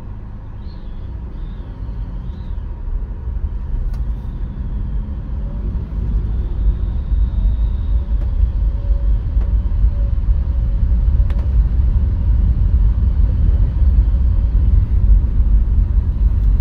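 Low, steady rumble of road and engine noise heard from inside a moving car's cabin, growing louder as the car picks up speed in traffic.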